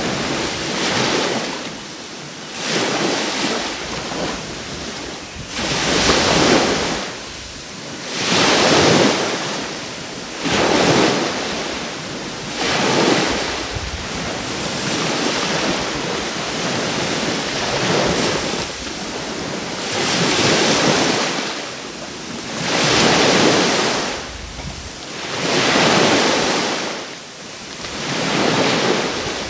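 Sea waves washing onto the coast, surging and easing about every two to three seconds.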